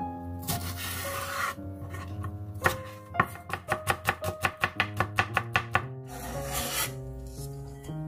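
Chef's knife rapidly chopping green onion on a wooden cutting board, a run of about five quick strokes a second through the middle, with brief rasps of the blade across the board before and after. Soft piano music plays underneath.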